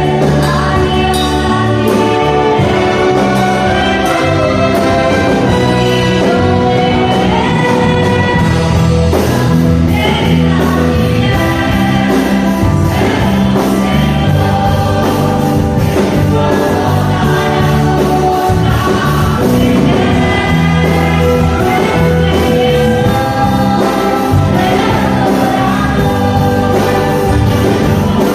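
Gospel song with singing over full band accompaniment, a steady beat and bass throughout.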